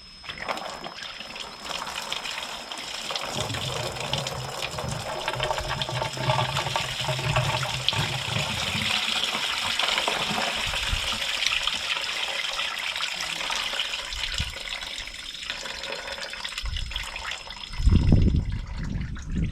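Coolant pouring steadily out of a 2003 Polaris 700 twin's cooling system into a container as the radiator is drained, easing off about sixteen seconds in. A brief loud low thump comes near the end.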